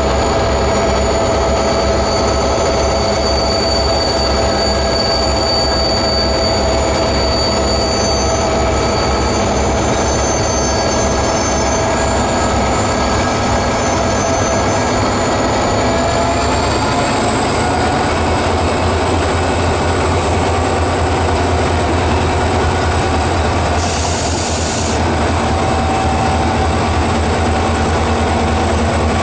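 EMD GT26CU-2 and GT26CU-MP diesel-electric locomotives working under load as they pull a loaded train away, their engines passing close by with a loud steady drone and a high steady whine above it. About halfway through the engine note shifts as the next unit comes past.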